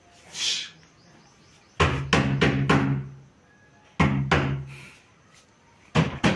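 TAK-TAK 888 rechargeable electric mosquito racket zapping insects on its charged mesh: three times a sharp snap breaks into about a second of crackling and buzzing as the grid arcs through what it has caught.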